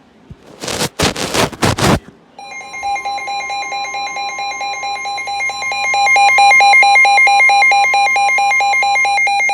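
Emergency Alert System header: a few short harsh bursts of data noise, then the alert tone, a loud steady multi-tone alarm with a fast pulsing that gets louder about six seconds in and runs on past the end.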